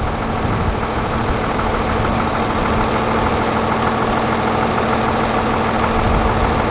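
Tractor engine running steadily, driving a bush hog rotary mower through the PTO.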